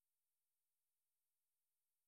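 Silence: the audio track is digitally silent.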